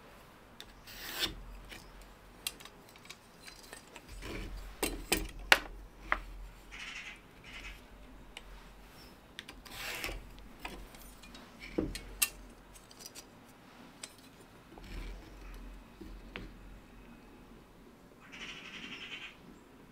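Pencil scratching lines across plywood along a metal combination square, with scattered light clicks and knocks as the square is set down and shifted on the board. The longest pencil stroke comes near the end.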